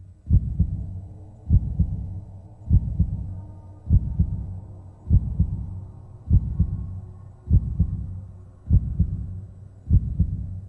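Heartbeat sound effect: slow, evenly spaced double thumps (lub-dub), about fifty a minute, each dying away, over a low steady drone.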